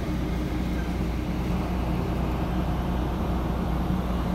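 Steady low mechanical drone of a running engine, unchanging throughout.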